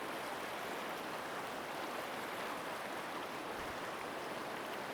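River water rushing over rocks, a steady even rush.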